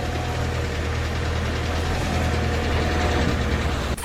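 An engine running steadily: a deep rumble with a faint steady tone above it, cutting off suddenly near the end.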